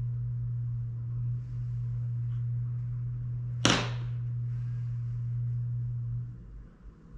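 A steady low hum that cuts off about six seconds in, with a single sharp click a little past the middle.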